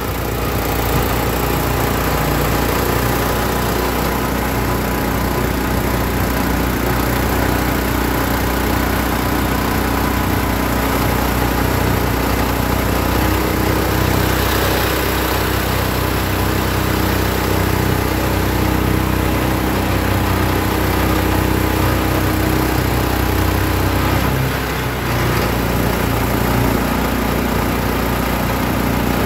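Four-stroke gas engine of a longtail mud motor pushing a jon boat under way, running steadily at a high throttle setting. The engine note dips briefly about 25 seconds in, then picks back up.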